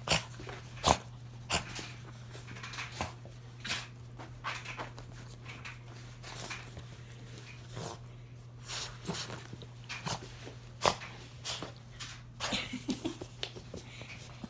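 Havanese dog snuffling and snorting as it rolls and rubs itself dry on towels after a bath, with irregular fabric rustling and a few sharp louder snorts, one about a second in and one near the end.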